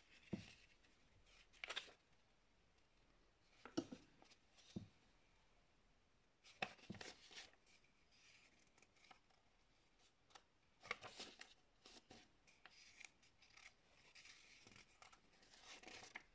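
Faint rustling and crinkling of a thin folded paper leaflet as its pages are turned and handled. The rustles come in short scattered bunches, with near silence between them.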